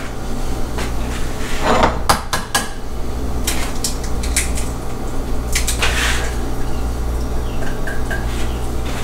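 An egg cracked against a glass bowl and the glass bowls clinked and set down on a stone counter: scattered sharp taps and knocks. A steady low hum runs underneath.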